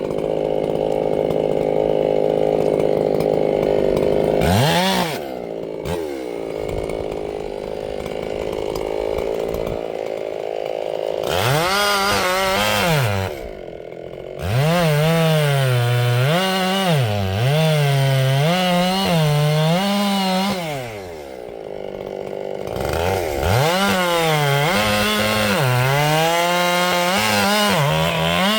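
Ported Echo CS-7310 two-stroke chainsaw running hard, its engine pitch repeatedly rising and dipping, with a few brief drops to a lower speed in between.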